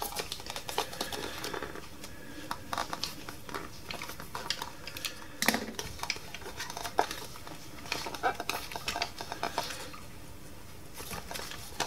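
Irregular small clicks, scrapes and rustling from hands working on a plush toy bunny, handling its hot-glued plastic drum.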